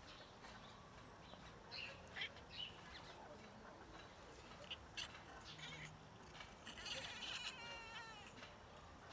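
Female cat crying out while mating: one wavering, high yowl near the end, with a few short, faint squeaks earlier.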